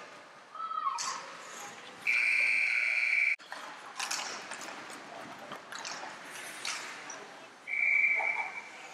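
Referee's whistle blown twice on the ice hockey rink: a steady blast of about a second near the start, and a shorter one near the end. Scattered knocks and rink noise fill the gap between them.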